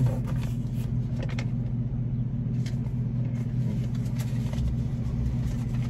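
Steady low hum of a vehicle's idling engine heard inside the cab, with a few faint clicks and rustles from hands working the sun visor and a slip of paper.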